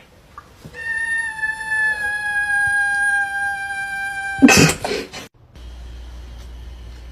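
An angry cat's long, drawn-out yowl, held for over three seconds and sliding slightly down in pitch, breaking off into a short, loud, harsh burst. After that a steady low hum continues.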